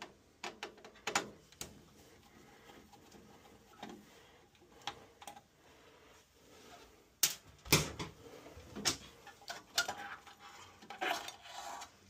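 Screwdriver work on an AO Smith tankless water heater's sheet-metal casing: scattered small metal clicks, taps and scrapes as screws come out and a part is lifted out, with several sharper clicks between about seven and ten seconds in.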